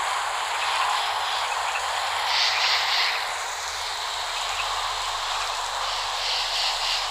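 Steady rain falling, a dense even hiss, with a couple of brief brighter swells in the upper hiss.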